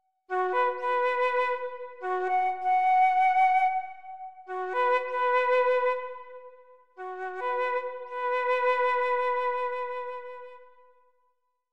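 Slow instrumental background music: a wind-instrument melody in held notes, played in four phrases with short breaks, the last fading out near the end.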